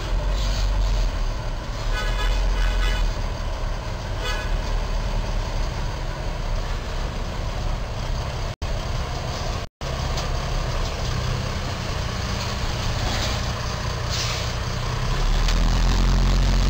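Semi truck's diesel engine running at low speed as it backs out from under the bridge, with a horn tooting several times about two seconds in and once more briefly a couple of seconds later. The engine gets louder near the end.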